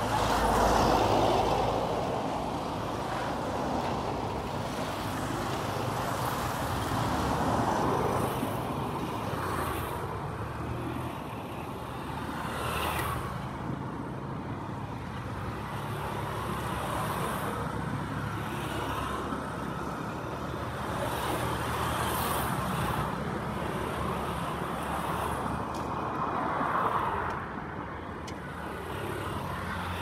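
Road traffic: cars, trucks and motorcycles driving past, a steady rumble of engines and tyres that swells and fades as vehicles go by.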